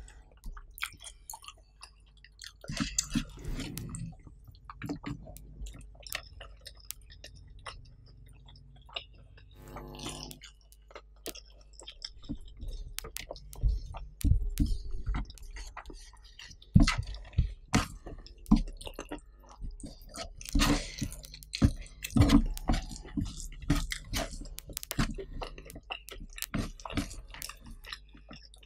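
Close-up mouth sounds of eating: wet chewing and lip smacks of rice with sambal squid, in irregular clicks and smacks, with a short hum about ten seconds in.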